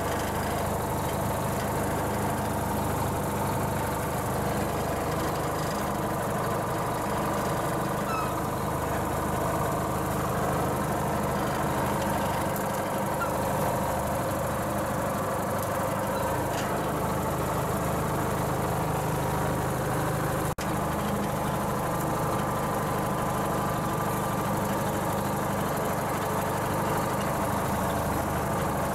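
An engine idling steadily, an even drone that holds throughout and drops out for an instant about two-thirds of the way through.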